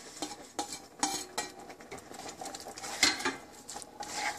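Cooked taro pieces being tipped off a stainless steel plate into a pan of curry and stirred in with a spatula: scraping with a few sharp clinks and knocks of metal, the loudest about three seconds in.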